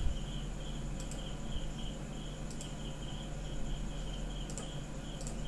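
A cricket chirping in the background, a steady pulse of high chirps about three a second, over a low steady hum, with a few faint clicks.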